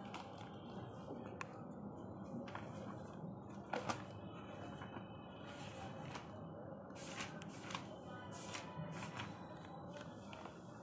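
Quiet room tone with scattered faint clicks and knocks, a close pair of louder knocks about four seconds in.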